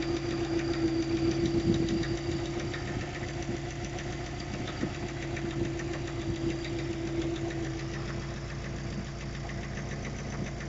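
Subaru Forester EJ205 flat-four engine running with a steady hum and a faint, regular knock from the pulley end. The owner suspects a failing hydraulic timing-belt tensioner.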